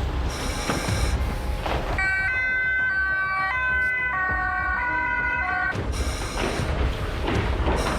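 Emergency vehicle siren, its pitch stepping between tones about every half second, cutting in about two seconds in and stopping about three seconds later, over a steady rushing noise of the fireground.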